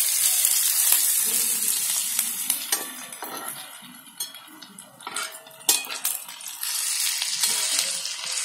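Sliced onions sizzling in oil in a cast-iron kadhai, stirred and turned with a metal spatula that scrapes against the pan; the onions are being sautéed until soft and orange. The sizzle drops off around the middle with a couple of sharp scrapes, then grows louder again as stirring resumes near the end.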